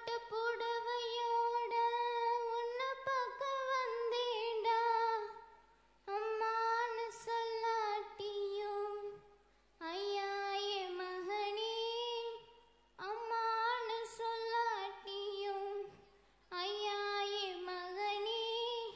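A girl singing a Tamil folk song solo into a microphone, with no instruments, in five long held phrases separated by short breathing pauses.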